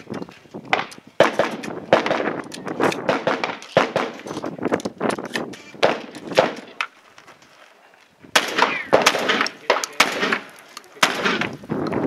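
Shotgun fired repeatedly in quick, irregular shots that echo off the range. The firing breaks off for about a second and a half past the middle, then resumes rapidly.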